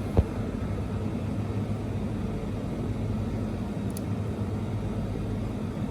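Steady low background rumble with a faint hum, broken by one sharp click just after the start and a faint tick about four seconds in.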